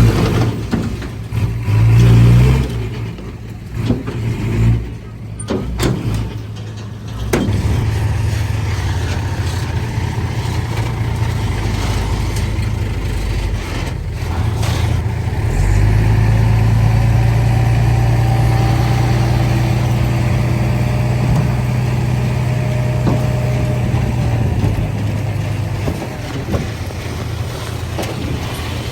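Heavy diesel engine running under load. It surges unevenly, with a few sharp knocks, over the first several seconds, then runs steadier and grows louder for a stretch past the middle.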